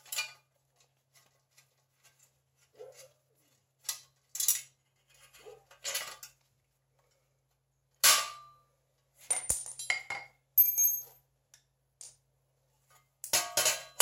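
Steel parts of a Fox-body Mustang clutch and brake pedal assembly clinking and clanking as it is taken apart by hand and pieces are set down. There are scattered light clicks, with sharper clanks about eight seconds in and around ten to eleven seconds, some of them ringing briefly.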